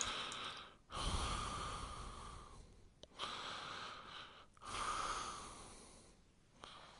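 Rainstick being tipped again and again: a rush of pellets trickling down inside the tube, each pour starting loud and fading away. One pour is ending at the start, and new ones begin about a second in, about three seconds in and near the five-second mark.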